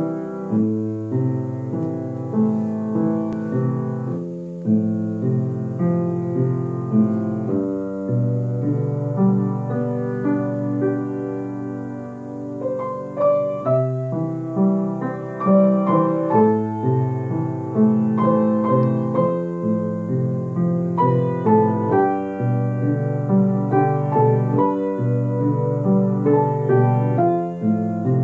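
Grand piano played four hands by two players in a duet: a melody over held bass notes and chords. The playing softens a little before the middle, then grows louder.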